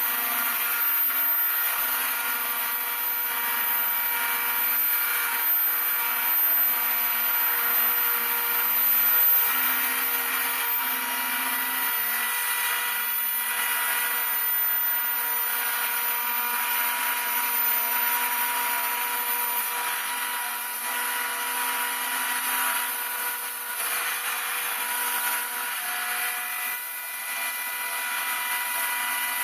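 Homemade CNC router milling model-aircraft ribs: the spindle runs with a steady high whine. Lower motor tones under it step to a new pitch every second or two as the axes move the cutter.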